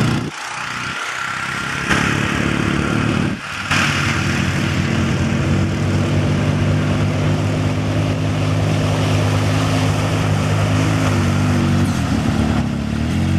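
Polaris off-road vehicle engines running. After a couple of quick cuts early on, a Polaris RZR side-by-side's engine runs steadily as it drives through muddy water, its pitch wavering up and down near the end.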